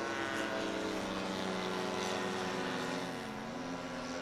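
Several radio-controlled model aircraft engines droning at once at different pitches, one dropping in pitch a little after three seconds and climbing back.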